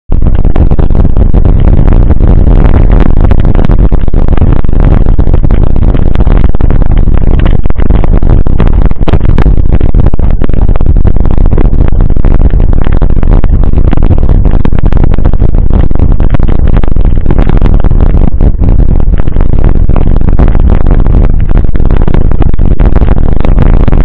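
Heavy wind buffeting and jolting vibration on a camera mounted on a mountain bike riding over a rutted dirt track. It is a constant, distorted low rumble with rattling knocks.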